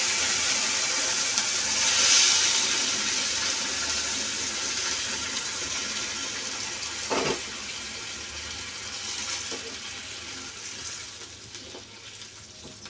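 Hot water poured slowly into broken wheat roasted in ghee in a hot nonstick pan, hissing and bubbling as it hits the pan, the hiss fading gradually. A brief knock about seven seconds in.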